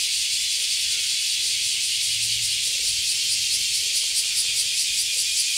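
A chorus of cicadas shrilling steadily, turning into a fast, even pulsing about four seconds in.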